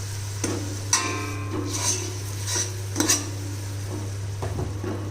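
A metal spoon stirring and scraping masala paste in a pan, clinking against the pan several times, one strike ringing briefly about a second in; a steady low hum underneath.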